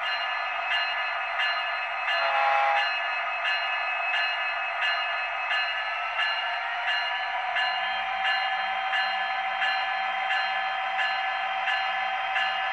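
Digital sound from the small speaker of an HO scale Metra MP36PH-3S diesel model: a steady diesel engine sound with a regular ringing beat about every three-quarters of a second. A brief lower tone sounds about two seconds in. The engine sound rises in pitch about seven seconds in, with a low hum coming in.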